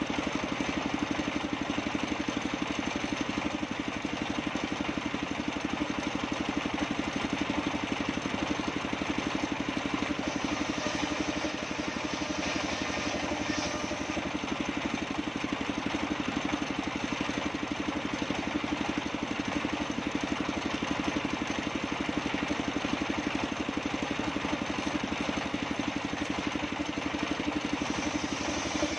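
Engine-driven circular sawmill running steadily: a large saw blade spins on an even engine drone while waru wood is fed through it, with the cut showing as slightly brighter, higher sound around the middle.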